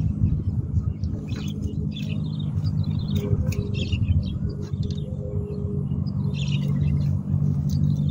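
A steady low hum and rumble, with birds chirping over it.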